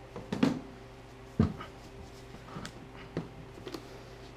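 Crankshaft and connecting rods being handled in a metal pan: a few sharp metal knocks, the loudest about a second and a half in, then lighter clinks, over a steady low hum.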